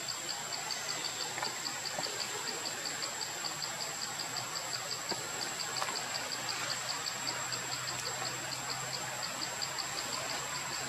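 Insects chirping in an even, steady pulse, about four or five chirps a second, over a continuous high-pitched whine.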